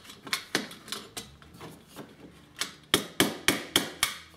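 Claw hammer tapping lightly on a metal tool held against a tin toy car's body, knocking out a dent. A few scattered light clicks of the tin being handled, then about five quick taps about three seconds in, roughly four a second.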